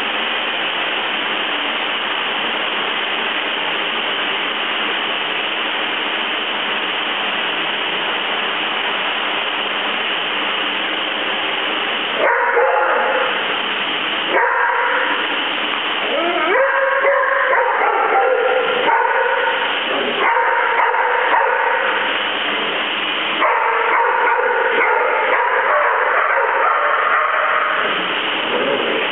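A steady hiss for about the first twelve seconds, then Labradoodles vocalizing in rough play: high-pitched, wavering dog sounds coming on and off through the rest.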